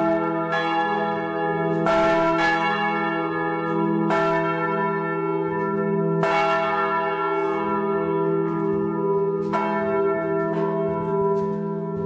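Several church bells ringing together in a full peal, strokes falling at uneven intervals over a steady hum of their overlapping tones.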